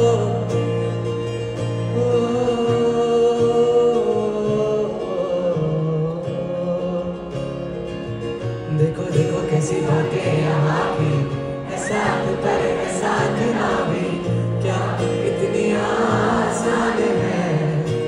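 Live acoustic guitar with a concert crowd singing along, many voices together like a choir.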